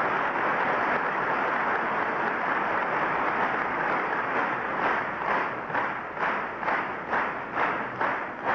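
Audience applauding, a dense steady clatter of clapping that about halfway through settles into rhythmic clapping in unison, about three claps a second.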